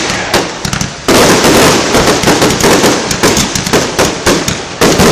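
Fireworks exploding in a dense, rapid barrage of loud bangs and crackles, with a short lull near the start before the volley resumes abruptly about a second in.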